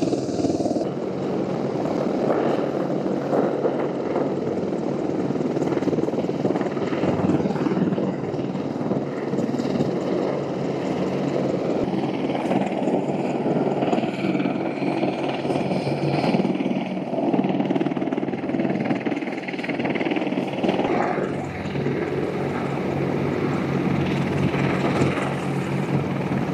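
AH-64 Apache helicopters running, their twin turboshaft engines and turning main rotors making a steady drone.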